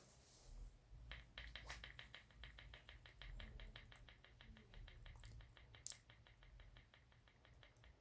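Adjustable hand grip strengthener set to 46 kg, squeezed in quick repetitions: a faint, even run of light clicks, several a second, starting about a second in.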